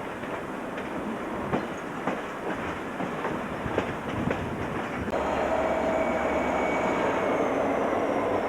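Passenger train running on the rails, its wheels clicking irregularly over rail joints. About five seconds in the sound turns abruptly louder and steadier, with thin high whining tones held over the rumble, one of them slowly falling.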